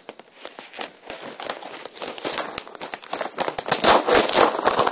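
Crinkling and crackling of treat packaging being handled close to the microphone, growing louder and busier about halfway through.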